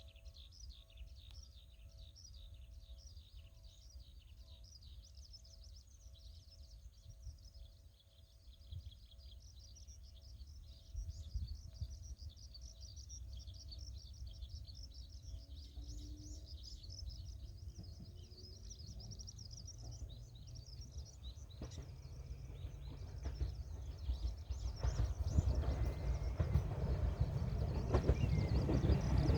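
Many small birds chirping, with wind buffeting the microphone. From about two-thirds of the way in, the rumble of an approaching Bessho Line 1000 series electric train rises steadily and grows loud near the end.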